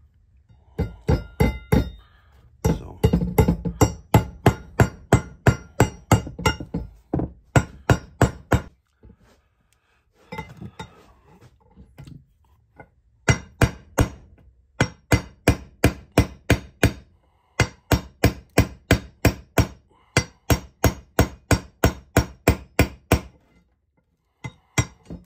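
Small hammer tapping a punch to drift a sight sideways in its dovetail on a muzzleloader rifle barrel. The taps are sharp and metallic with a slight ring, about four a second, in several runs with short pauses between them.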